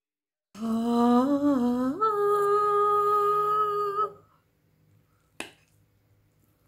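A woman humming a short tune: a wavering lower phrase, then a jump up to a higher note held for about two seconds. A single sharp click about five seconds in.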